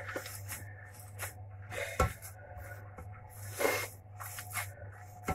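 Gloved hands kneading and squeezing a wet bulgur çiğ köfte paste in a tray: irregular squelches and sticky slaps, with a sharper slap about two seconds in and a longer squelch shortly before the four-second mark.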